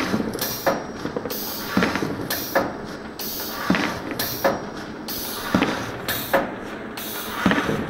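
Paper-core cutting machine at work, a cardboard tube spinning on its mandrel under a circular knife, with sharp knocks and clicks roughly once a second over a hiss that switches on and off every second or two.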